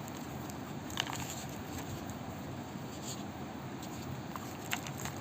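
Jewellery packaging being opened and handled: faint rustling with three small clicks, the sharpest about a second in, over a steady hiss.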